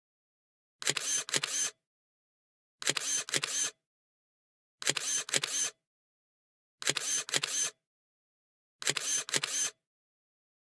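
Camera shutter sound effect: a short burst of a few rapid clicks, repeated every two seconds with dead silence between, five times over.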